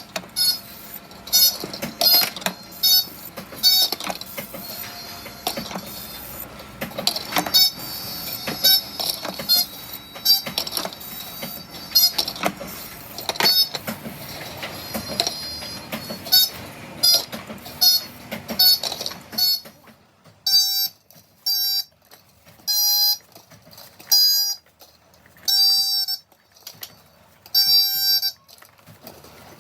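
Bike air horns sounding in short pitched toots, one after another, over workshop noise. About two-thirds of the way through, the background goes quiet and single toots come roughly a second apart.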